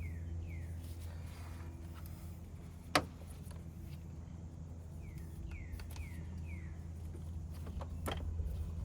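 Steady low hum with a single sharp knock about three seconds in and a couple of fainter clicks near the end. Short falling chirps come in quick runs of three or four, twice.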